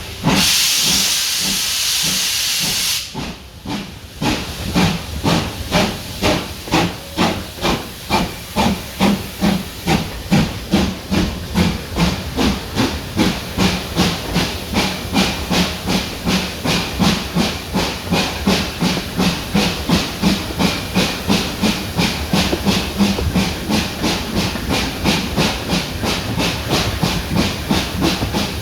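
Steam locomotive starting away: a loud hiss of steam for about three seconds, then exhaust beats that begin at about two a second and quicken steadily to three or four a second as the train gathers speed.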